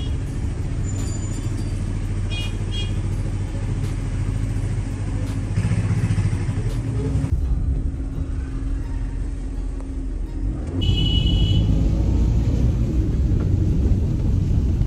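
Car cabin noise while driving on a wet road: a steady low rumble of engine and tyres. Short high-pitched beeps come twice, about two seconds in and again near eleven seconds.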